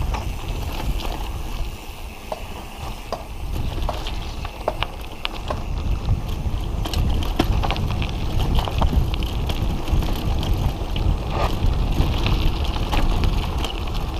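Trek mountain bike rolling over a rough dirt and gravel road: a steady tyre and wind rumble on the microphone, with scattered sharp clicks and rattles from the bike and loose stones.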